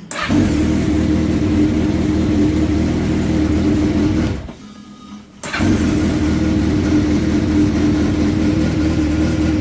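Honda CBX550F's air-cooled inline-four engine running steadily on its freshly repaired carburettors. The sound drops away for about a second midway and comes back abruptly.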